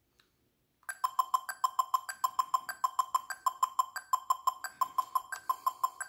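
Korg TM-60 tuner-metronome clicking out a fast, steady beat of short electronic beeps, about six a second, starting about a second in; some beeps are pitched a little higher, as accents.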